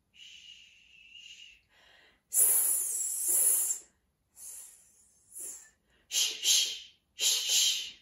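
A woman making voiceless hissing and shushing sounds with her mouth in a run of short breathy bursts, the first faint and the rest louder. These are vocal warm-up noises imitating snow and ice.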